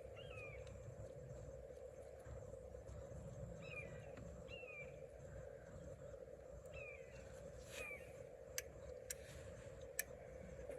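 Faint, short, high calls from an animal, each gliding downward, about seven of them in ones and pairs a few seconds apart, over a steady low hum. A few sharp clicks come near the end.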